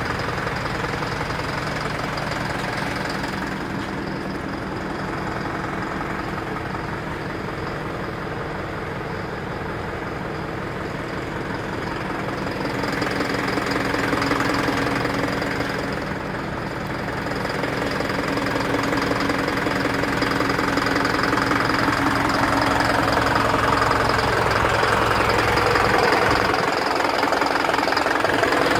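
Isuzu NPR truck engine running steadily, rising a little in loudness a few times. The cylinder 2 injector circuit fault (P0202) behind its knocking has been traced to a loose injector wire connection, now strapped down.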